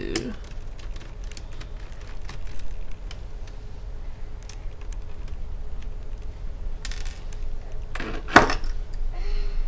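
Light clicks and taps from handling a laptop lid, its LCD panel and small screws with a screwdriver, with one louder sharp clack a little after eight seconds in as the screwdriver is set down.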